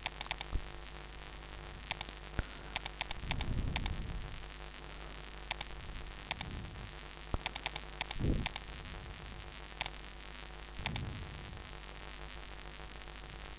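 Computer mouse clicking: short sharp clicks, singly and in quick pairs and runs, scattered throughout, over a steady electrical hum and hiss from the microphone. A few soft low rumbles come and go.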